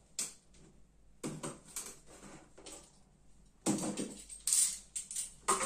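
Cardboard box being opened by hand: seals torn and the lid scraped and rustled in several short bursts, the loudest about four seconds in.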